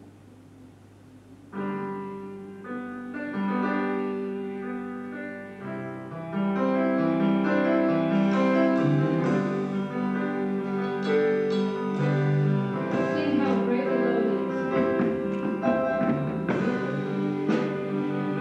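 Electric keyboard starts a worship-song introduction about a second and a half in, playing sustained chords that change in steps. Other band instruments join from about six seconds in and the music gets louder.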